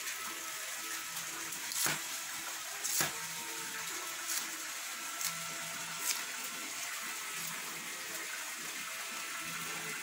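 A steady hiss, with a few sharp knocks of a knife cutting banana leaf on a wooden chopping block.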